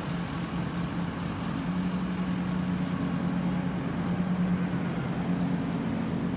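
Steady low mechanical drone of idling engines over an even hiss, with a few faint ticks about three seconds in.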